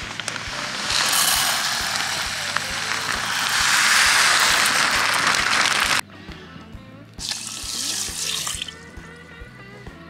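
Uncooked rice poured from a plastic zipper bag into an aluminium pot: a steady rushing patter of grains for about six seconds that stops suddenly. Then water is poured onto the rice for about a second and a half.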